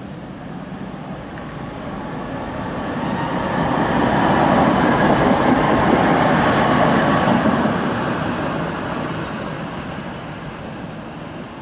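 Coupled Tatra T3 tram set passing close by on its rails: wheels rolling over the track, the rumble swelling to a peak about halfway through and fading as it draws away, with a faint steady high whine over it.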